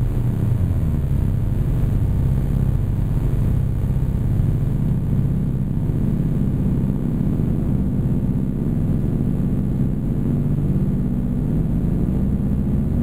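Hand-made analog 'Weird Sound Generator' synth with six oscillators and a resonant low-pass filter, playing a dense, fluttering low buzzing drone of several clashing tones. Near the end a tone starts sweeping upward in pitch.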